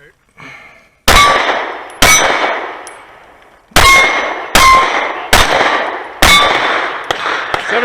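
Six pistol shots from a Sig P320 Carry fired at steel targets, each followed by the ringing clang of a hit steel plate. The shots come at uneven spacing, about a second apart with a longer gap after the second, and a few fainter clicks follow near the end.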